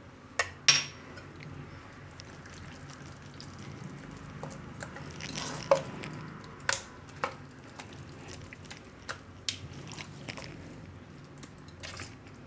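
A spoon stirring thick semolina batter in a stainless-steel bowl: steady wet squelching, with scattered sharp clinks of the spoon against the bowl.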